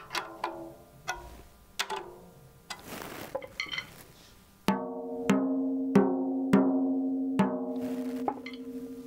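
A tom-tom's resonant head is tapped lightly with a drumstick near the tension rods to compare the pitch, each tap giving a short ringing note, with a brief scraping noise about three seconds in. Halfway through come five or six firmer strokes, under a second apart, each ringing on at one clear, steady pitch: the head is being tuned evenly, fairly high.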